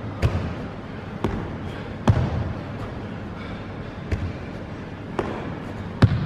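Box step-ups: sneakers thudding as they land on a padded box and on a hardwood floor, six heavy footfalls about a second apart, echoing in a large room. The last thud, near the end, is the loudest.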